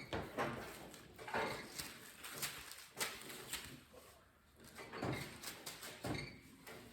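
Irregular hand strokes rubbing and scraping over a truck's sheet-metal body panels, with a few light knocks.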